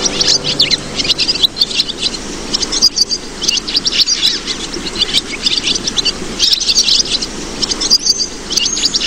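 Small birds chirping and trilling in quick, repeated phrases of high notes, over a faint rural background.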